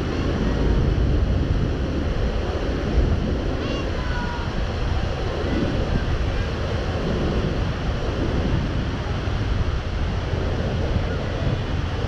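Wind blowing across the microphone, with a steady wash of waves in the ship canal.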